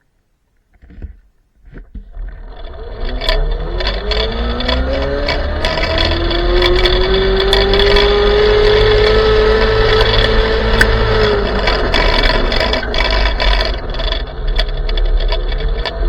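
Electric motor of a small ME1000 mini motorcycle accelerating after a couple of nearly quiet seconds with a few clicks. Its whine rises in pitch as it speeds up, holds steady, eases off, then rises again near the end, over a steady rushing noise.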